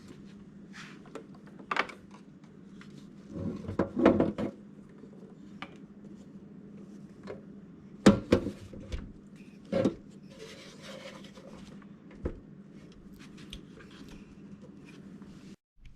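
Knocks, clicks and clatter of hard equipment being handled and set down as a Lexicon sound effects processor is put back in place. The loudest bumps come around four seconds in and again around eight and ten seconds in. A steady low hum runs underneath and cuts off just before the end.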